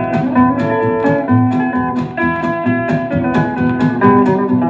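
A country novelty record playing from a Decca 45 rpm single. This is an instrumental passage between verses: a guitar-led band with a steady beat.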